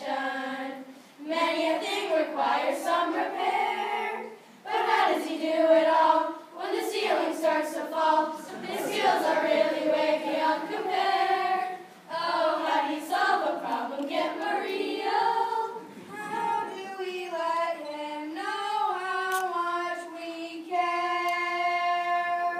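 Children's choir singing, closing on one long held note near the end.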